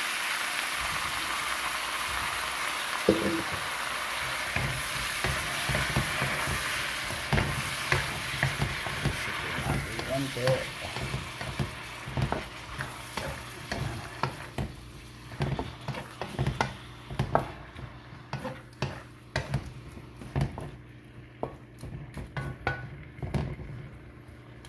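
Shrimp frying in butter and garlic in a wok, sizzling, while a wooden spatula stirs them, scraping and knocking against the wok. The sizzle dies down over the second half as the spatula knocks come more often.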